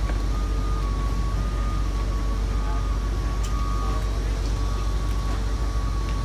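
Steady running of heavy airport ground equipment and vehicles on the apron: a deep engine rumble with a steady high whine over it.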